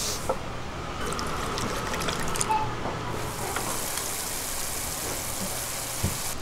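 A white sugar mixture poured from a plastic jug into a hammered aluminium pan, with a few light ticks. From about three seconds in, a steady high hiss as the sugar syrup bubbles over the heat on its way to becoming golden sugar.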